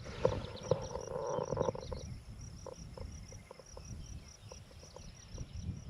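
Insects chirping in a steady rapid pulse, about four to five chirps a second, over low wind rumble on the microphone and a few faint short sounds.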